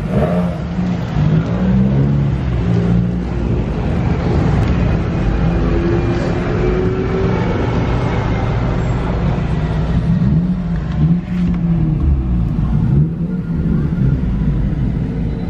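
Car engines running loudly, their revs rising and falling.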